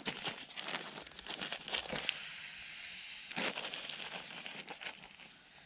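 Rustling and crinkling of clothing fabric as clothes are being pulled on, with a sharper rustle about three seconds in, fading toward the end.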